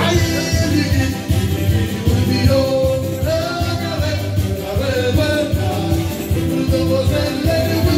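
Live band music with a singer's voice carrying the melody over a steady beat and keyboard.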